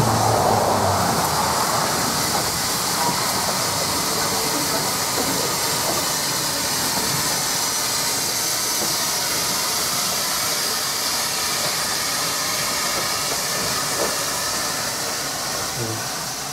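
Beyer Peacock 0-6-0T narrow-gauge steam locomotive hissing steadily as it moves slowly past, steam escaping from its open cylinder drain cocks.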